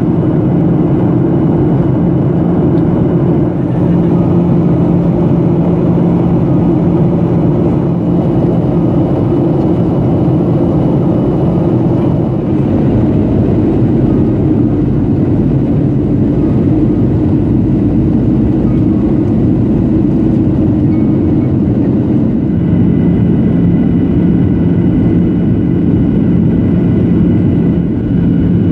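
Steady cabin noise of a Boeing 737-800 airliner on its approach, heard from a seat over the wing: the continuous drone of its CFM56-7B jet engines and rushing airflow, with a low hum running under it.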